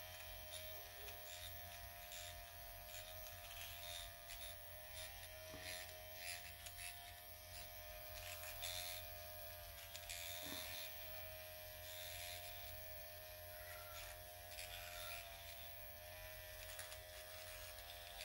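Dr. Pen electric microneedling pen running with a faint, steady buzz as its motor drives the needle cartridge against the skin of the face.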